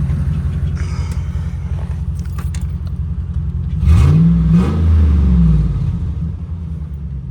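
2011 Ram 1500's 5.7 Hemi V8 idling, running on a fuel pump relay bypassed with a jumper. It is revved up briefly about four seconds in, then settles back to idle.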